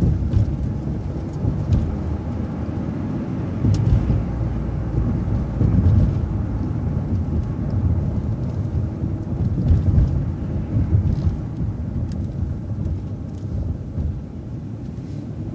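City transit bus driving over a railroad crossing: a deep, steady rumble of engine and road noise, broken by several heavier jolting thumps as the wheels cross the rails.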